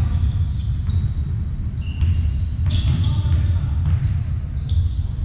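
Basketball game play on a hard court: the ball bouncing and sneakers giving short, high-pitched squeaks on the floor, with players' voices calling. A steady low rumble of the hall runs underneath.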